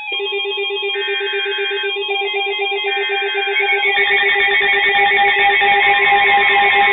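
Several weather alert radios sounding their alarms, a rapidly pulsing beep under steady warbling tones, while two one-second bursts of the raspy SAME digital header come through about a second apart. About four seconds in, more alarm tones join and the sound grows louder, signalling a new alert being received.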